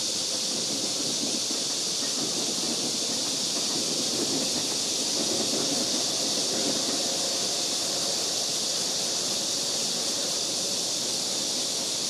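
Steady outdoor ambience: an even, high-pitched hiss over a low, shifting rumble.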